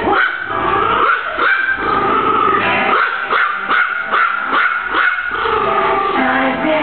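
Dog whining in a high, wavering pitch, with a quick run of short yips in the middle.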